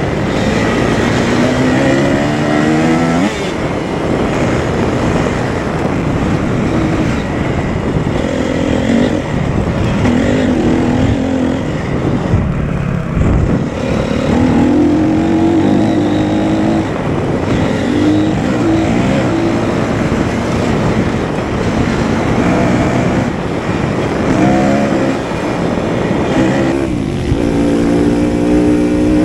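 Four-stroke 250cc motocross bike engine being ridden hard round a track: the note climbs as the throttle opens and drops off again every few seconds, over a constant rush of noise.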